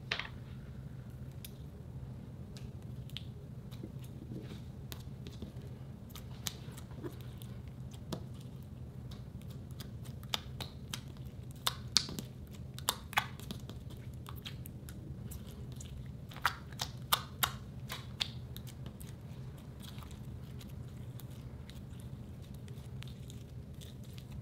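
Clear slime being kneaded and stretched by hand, giving sticky, wet clicks and crackles, thickest and loudest in a run about halfway through. A faint steady low hum lies under it.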